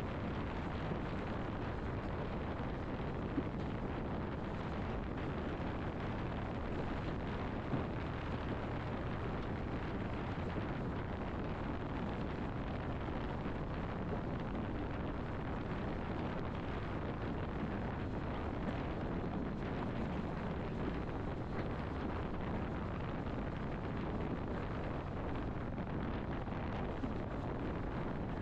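Steady low rumbling noise with no tone or separate sounds in it.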